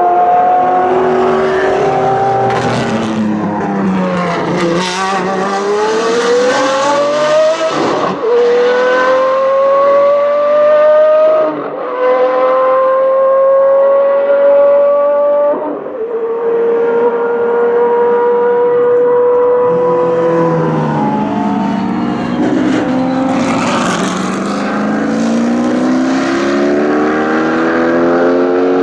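Historic racing car engines at full throttle, several cars accelerating past. Each engine note climbs in pitch and drops sharply at every upshift, about three times in a row in the middle, with further cars coming through after.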